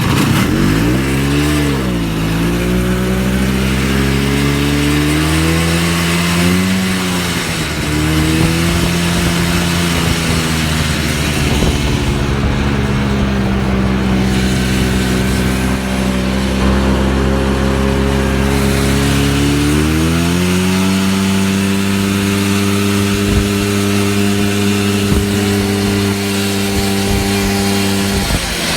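Snowmobile engine running while being ridden. Its pitch dips and climbs about a second in, rises again at around seven seconds, then climbs once more at about twenty seconds and holds steady at the higher speed.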